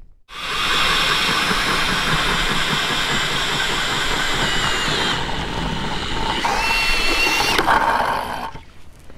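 Milwaukee Fuel cordless drill spinning an ice auger down into lake ice: a steady motor whine over the grinding of the auger blades, changing pitch a couple of times, then stopping shortly before the end.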